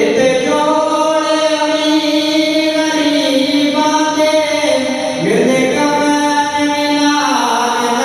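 A reciter's voice chanting in long, held melodic notes over a mosque's sound system during a sound check, with sliding turns of pitch about five and seven seconds in.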